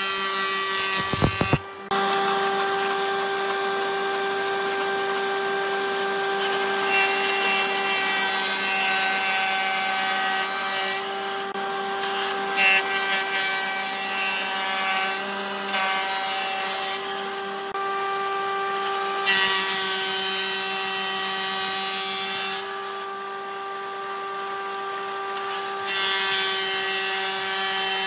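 Wood planer running with a steady machine whine while timber is fed through, the cutterhead's noise rising in several stretches of a few seconds as it planes the wood.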